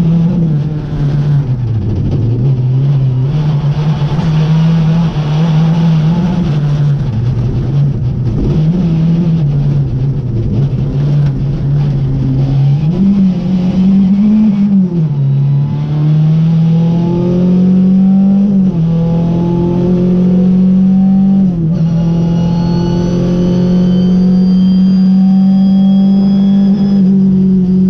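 Rally car engine heard from inside the cockpit at stage pace: the revs rise and fall repeatedly through a run of corners, then climb in long pulls up through the gears, two upshifts dropping the pitch, before holding high on the straight.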